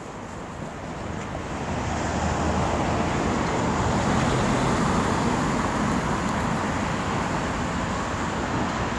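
Road traffic noise: a steady rush with a low hum that swells over the first couple of seconds and then holds.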